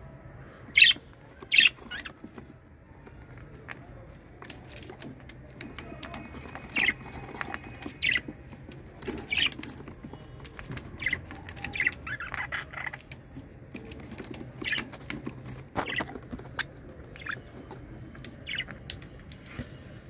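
Budgerigar chicks in a wooden nest box giving short, raspy chirps at irregular intervals, the two loudest close together about a second in, with scrabbling on the nest litter in between.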